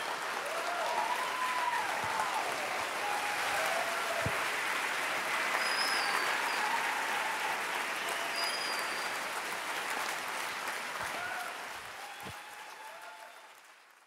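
Audience applauding after a talk, a dense steady clapping that fades out over the last few seconds.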